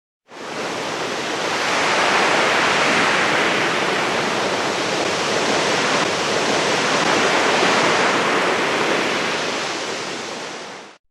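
Steady rush of water, an even, unbroken noise that fades in just after the start and stops shortly before the end.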